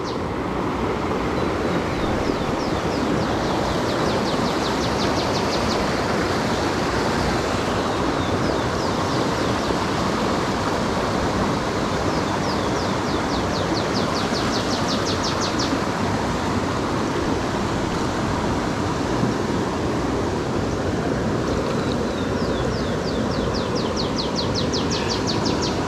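Steady rush of a fast-flowing stream, with the rapid ticking of a Shimano FX 2500 spinning reel being cranked to retrieve the lure, three times for a few seconds each.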